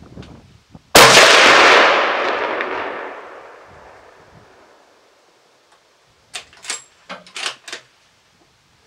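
A single rifle shot from a Browning A-Bolt Stalker in 7mm Remington Magnum about a second in, its report echoing and dying away over about three seconds. Some five seconds later comes a quick series of sharp metallic clicks as the bolt is worked.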